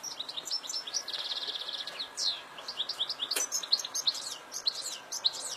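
European goldfinch singing: a fast, tinkling twitter of high chirps and sweeping notes, with a buzzy trill a little after a second in. A single sharp click sounds about midway.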